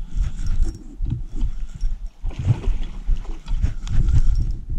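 Close handling noise as a freshly landed bass is held and moved about: irregular low thumps with rustling and scraping in bursts.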